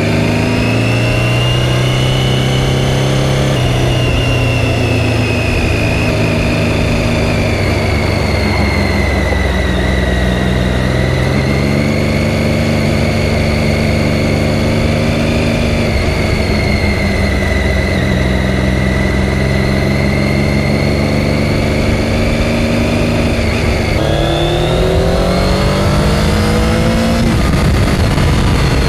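Triumph Daytona 675 inline-three engine running under way, its pitch steady for stretches and stepping up and down with throttle and gear changes. About three-quarters of the way through it revs up smoothly under acceleration, then eases off near the end.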